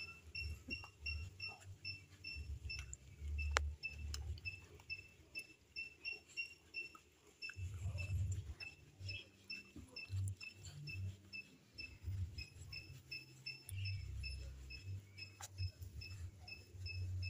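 A steady series of faint, high, even-pitched chirps, about three or four a second, over uneven low rumbling and a few soft clicks.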